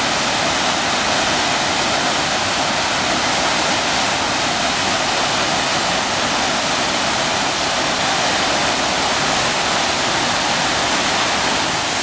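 Rushing white water over rocks in a fast stream: a steady, even rush of water noise.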